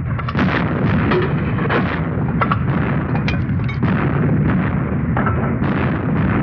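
Battle gunfire and artillery fire: a continuous din of overlapping shots, with sharper cracks standing out at irregular intervals.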